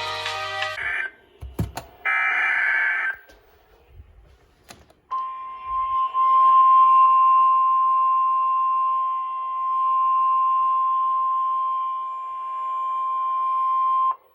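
A short harsh burst of data tones about two seconds in. Then the NOAA Weather Radio warning alarm tone: one steady high tone near 1 kHz, held for about nine seconds and cut off suddenly, sounded as the weekly test of the warning alarm system.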